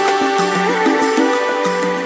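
Background music: long held notes over a quick repeating figure of short lower notes.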